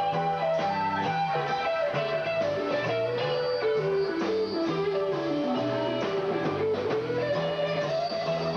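A live rock band playing: an electric guitar plays a lead line that wanders and slides downward partway through, over a moving bass line.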